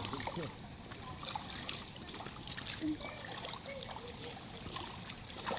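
Steady trickle of flowing water.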